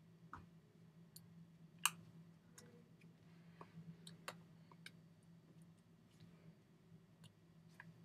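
Near silence: a low steady hum with scattered faint clicks and taps, the loudest about two seconds in.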